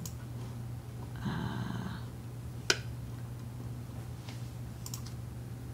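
Quiet room with a steady low electrical hum; a short breathy noise about a second in, then a single sharp click from the computer desk midway through, with a couple of faint ticks after it.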